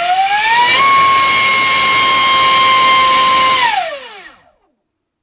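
Dr Mad Thrust 2870 3000kV brushless inrunner motor driving a Gemfan 5.5x5.5 prop on a thrust stand. It gives a rising whine as it is throttled up to full power, holds a steady high whine for about three seconds, then falls away as it spools down and stops. At full throttle it pulls about 1900 grams of thrust at about 128 amps, which is a bit too much for this motor.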